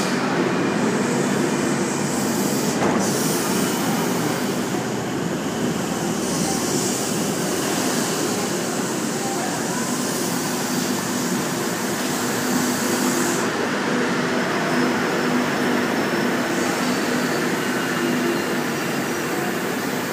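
Sydney Trains K-set double-deck electric train arriving at the platform: a steady rolling rumble with wheel noise. A steady low hum from the train's equipment comes in about halfway through.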